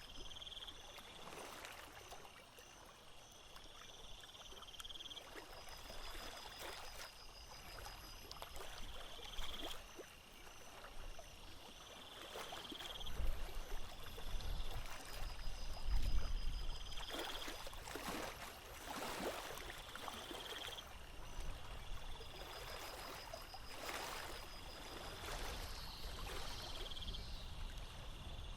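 Water lapping and splashing irregularly against a boat, with a high chirping call repeated about every four seconds and a low rumble of wind on the microphone around the middle.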